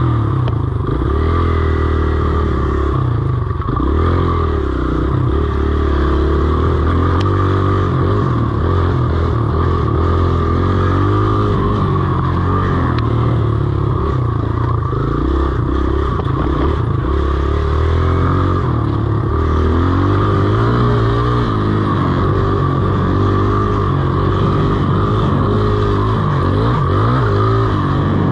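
Dirt bike engine running hard on a trail ride, its pitch climbing and dropping over and over as the rider works the throttle and gears.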